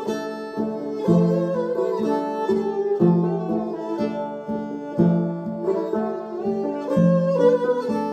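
Acoustic instrumental music: an upright bowed string instrument plays a sustained, gliding melody over a plucked long-necked lute. The lute keeps a repeating low pattern, accented about every two seconds.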